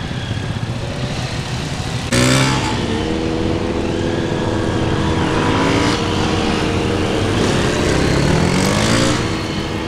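A motorcycle engine running, with the engine speed rising and falling. About two seconds in, the sound cuts abruptly to a louder Kawasaki KLX125 single-cylinder engine, revving up and easing off.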